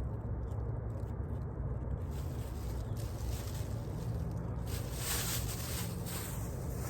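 Wind rumbling on the microphone, with a brief rustle lasting about a second near the end.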